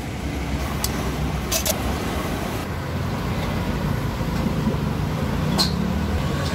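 Steady low rumble of passing road traffic, with a few light clicks.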